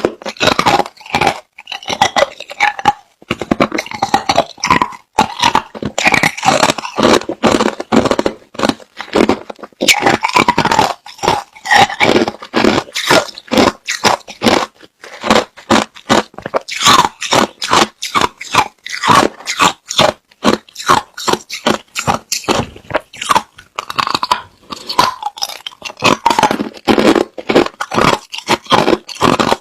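Hard, clear crushed ice being bitten and chewed close to the microphone: loud, rapid, irregular crunching and cracking, with short pauses between mouthfuls.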